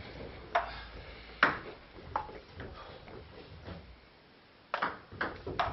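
Celluloid-type table tennis ball clicking sharply off bats and the table in a rally, at irregular intervals of about half a second to a second. After a brief quiet spell, a quicker cluster of clicks comes near the end.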